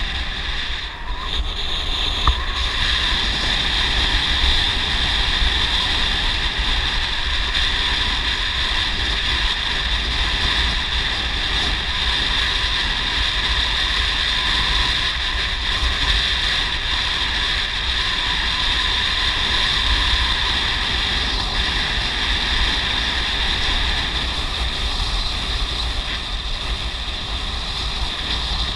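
Wind buffeting the microphone during a ride along a road, a steady low rumble with an even high-pitched drone above it.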